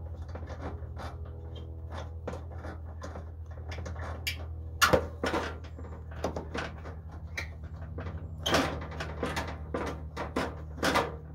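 Metal clicks and knocks as a propane regulator's brass fitting and tube are worked into the side inlet of a Coleman two-burner propane camp stove and tightened by hand. The loudest knocks come about five and about eight and a half seconds in, over a steady low hum.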